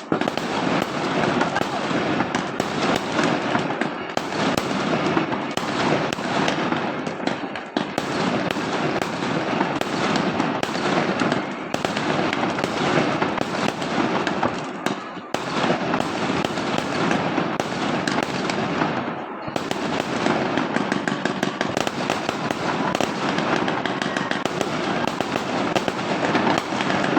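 Fireworks and firecrackers going off in a dense, continuous barrage of crackles and bangs, easing off briefly three times.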